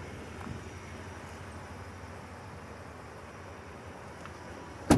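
Ford F-150's 5.0-litre V8 idling quietly and steadily, with a single sharp click near the end.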